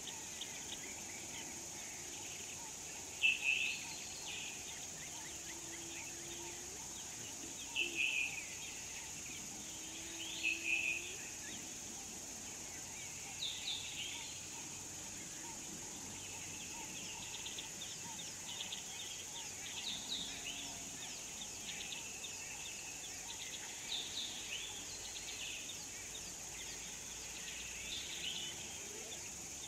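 Wild birds calling with short, sharp chirps every few seconds, the loudest about three seconds in, over a steady high insect hum. A few faint low calls come in now and then.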